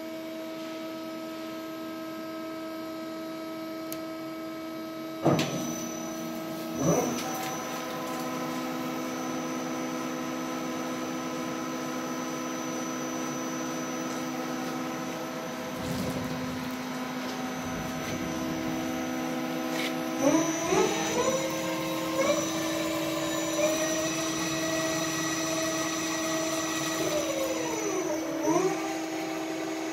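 1997 Daewoo Puma 12L CNC lathe running with a steady hum. There are two sharp mechanical knocks about five and seven seconds in. From about twenty seconds in the spindle and chuck start turning, with a whine that rises in pitch, dips briefly near the end and climbs again.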